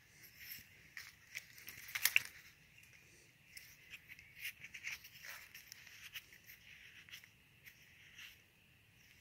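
Faint crackling and rustling of soil and dead leaves as a hand works a corroded buried tube loose from the ground, with a cluster of louder crackles about two seconds in.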